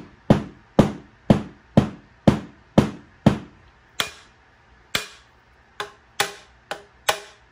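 About a dozen rawhide-mallet strikes on a trumpet's valve casing with a steel mandrel inside it: rebound blows to bring a dented piston casing back round. Sharp knocks with a brief metallic ring, about two a second at first, then slower and uneven in the second half.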